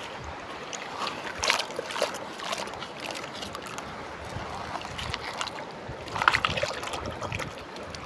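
Fingers scraping and scooping wet sand out of a plastic toy dump truck's bed, a few short gritty scrapes, the strongest about a second and a half in and again near six seconds, over the steady wash of shallow water.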